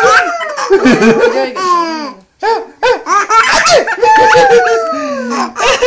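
An infant under a year old laughing in repeated belly laughs, in two runs with a short break about two seconds in.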